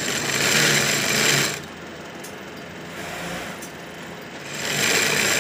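Sewing machine stitching denim jeans in two runs. The first lasts about a second and a half from the start and the second begins near the end, with a quieter steady running sound between them.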